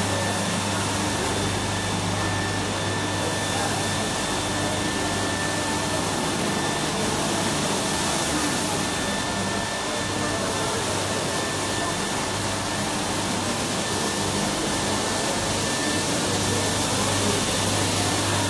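SAFRAN automatic carpet-washing machine running, its row of rotating disc brushes scrubbing a carpet as it feeds through. A steady machine noise with a low hum and a thin high whine.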